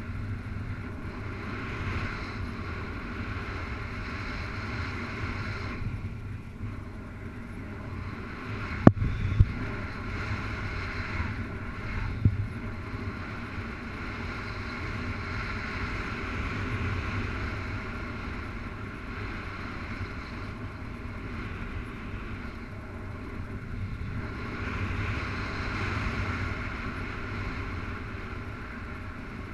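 Airflow rushing over the camera microphone during a paraglider flight, a steady windy noise that swells and eases. A few sharp knocks about nine seconds in, and one more about three seconds later.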